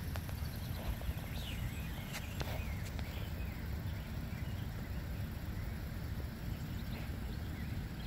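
Outdoor ambience: a steady low rumble of wind on the microphone, with a few short bird chirps about two seconds in.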